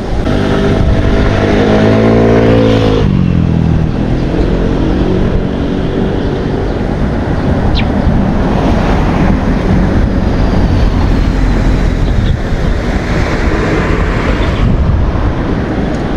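A motor vehicle's engine passing close by, its pitch falling as it goes past about three seconds in, then a steady rush of wind noise on the microphone.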